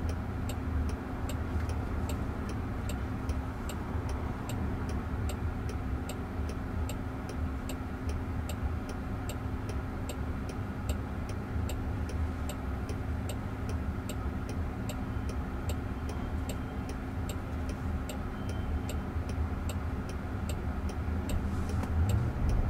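A car's turn signal ticking steadily inside the cabin of a stopped Waymo Jaguar I-Pace, over a steady low hum. Near the end an electric motor's whine rises as the car pulls away.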